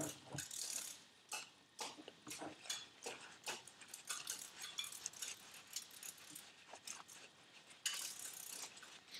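Faint, irregular clicks and light metallic taps of small turbo rebuild parts being handled, with a short scratchy noise about eight seconds in.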